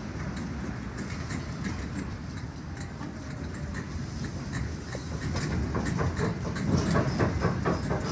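Earthquake shaking: a deep, steady rumble with rattling and clattering, the clatter growing denser and louder about five seconds in.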